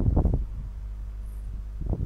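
Low steady hum, with a few soft low knocks in the first half-second.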